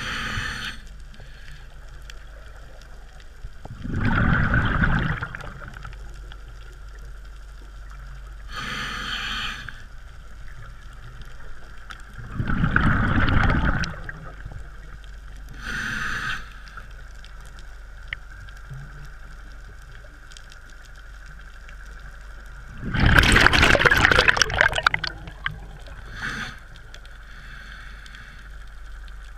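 Scuba diver breathing through a regulator underwater: short hissing inhalations alternate with longer bubbling exhalations, a full breath about every eight to ten seconds. The third exhalation, near the end, is the loudest and longest.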